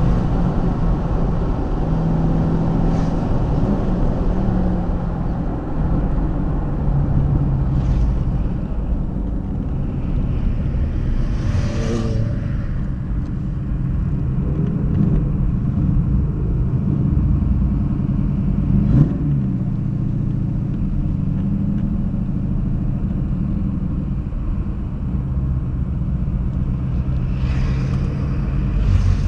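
TVR Griffith's V8 engine running as the car drives along, heard from inside the car over tyre and road rumble. Its note shifts up and down a little with the throttle.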